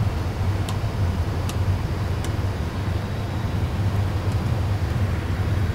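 Steady low hum of an Airbus A320 full flight simulator cockpit. Over it, a few faint clicks about a second apart in the first couple of seconds as overhead-panel pushbutton switches are pressed to put out their white lights.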